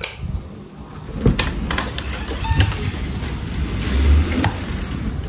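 A vehicle's low rumble with scattered knocks and clatter, swelling louder about four seconds in.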